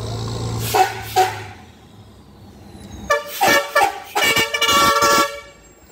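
Vehicle horn sounding in a series of short toots: two near the start, then several more in the second half ending in a longer, stuttering blast. A low engine hum runs under the first part and drops away about a second and a half in.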